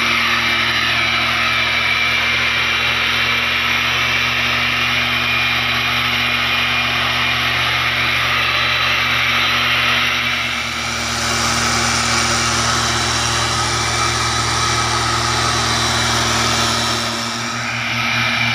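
Backpack mist blower's small two-stroke engine running steadily at high speed, with a rushing blast of air from the nozzle. The level dips briefly about ten seconds in and again near the end.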